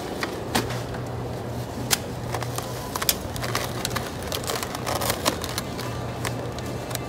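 Supermarket background noise: a steady low hum with scattered sharp clicks and knocks.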